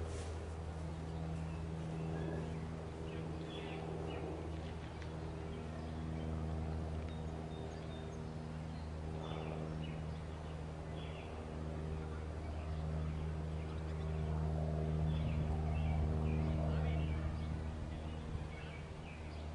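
A steady low hum, with short bird chirps scattered over it.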